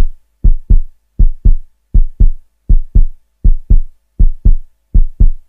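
Heartbeat sound effect: deep double thumps, lub-dub, repeating evenly about every three-quarters of a second, with silence between the beats.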